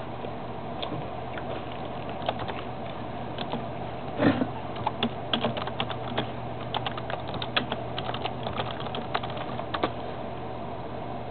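An irregular run of light clicks and taps over a steady low hum, with one louder knock about four seconds in.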